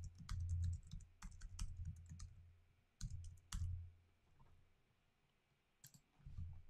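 Typing on a computer keyboard: a quick run of keystrokes, then a few separate clicks with pauses between them.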